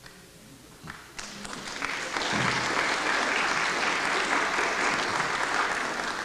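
Audience applause that starts a little over a second in, builds quickly into steady clapping and begins to fade near the end.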